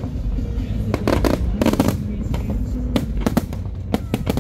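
Aerial firework shells bursting in a dense barrage: a rapid, uneven string of bangs and cracks, bunched around a second in and again around three seconds in, over a constant low rumble of further explosions.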